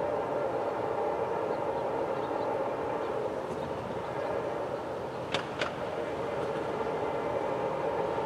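Approaching Norfolk Southern diesel freight locomotive, a steady drone with several held tones. Two sharp clicks a fraction of a second apart come a little past halfway.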